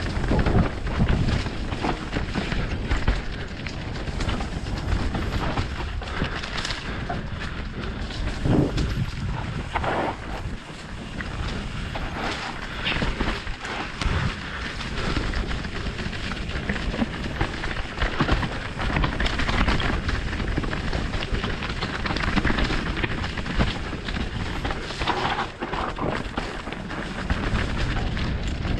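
Mountain bike ridden fast down a rough dirt trail, heard from a camera on the bike or rider: a steady rush of wind and tyre noise, with the bike rattling and knocking over bumps throughout.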